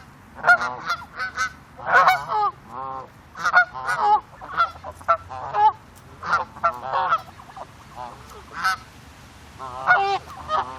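Several ducks quacking close by, in overlapping runs of short calls, with a brief lull a little after the middle.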